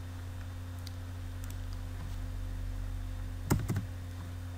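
Typing on a computer keyboard: a few faint keystrokes, then a quick cluster of louder key presses about three and a half seconds in, over a steady low electrical hum.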